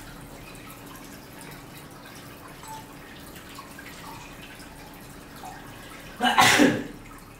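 Faint dripping and trickling of water, with one short, loud burst of noise a little past six seconds in.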